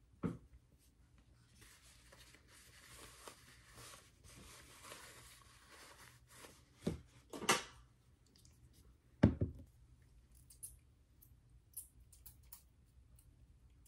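Hair products and small items handled at a vanity desk: a soft rustling for several seconds, then a few sharp knocks of things being picked up and set down, the loudest about nine seconds in, with small clicks near the end.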